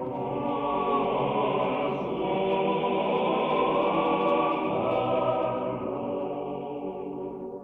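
A cappella choir singing slow, sustained chords in the manner of Russian Orthodox church chant, heard on an old narrow-band radio broadcast recording. The chords swell and ease gently, thinning a little near the end.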